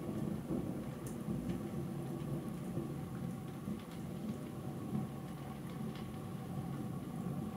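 Distant thunder rumbling on without a break, a low rolling sound that swells and fades gently.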